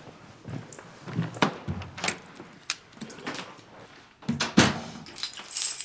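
Keys jangling and a door being unlocked and opened: a string of clicks and knocks, the loudest about four and a half seconds in, with a bright jangle of keys near the end.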